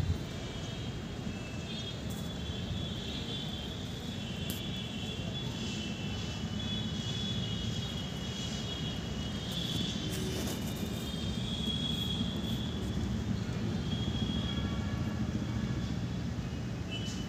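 Steady low background rumble, like distant traffic, with faint high chirping tones that come and go over it.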